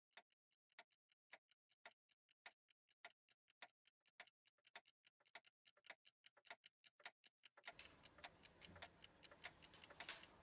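Faint clocks ticking in a quick, even run of about four to five ticks a second. About eight seconds in, a faint steady room hiss comes in under the ticking.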